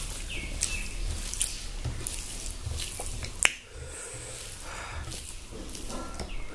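Close-up eating sounds: a hand squishing and mixing rice and gravy on a banana leaf, with wet mouth smacks and clicks from chewing. A sharp click about three and a half seconds in is the loudest.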